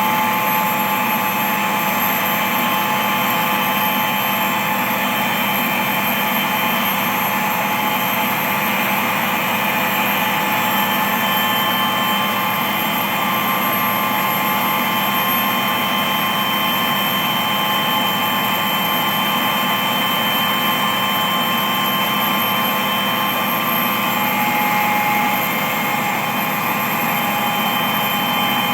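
A steady, unbroken engine drone with several held tones over a noisy hum.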